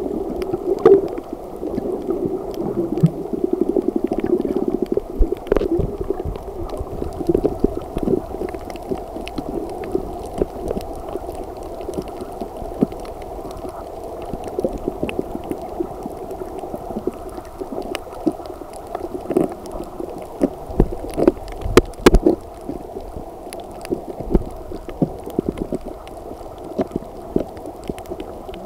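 Muffled underwater sound picked up by a camera below the surface: a steady dull rush of water with many small clicks and knocks scattered through it.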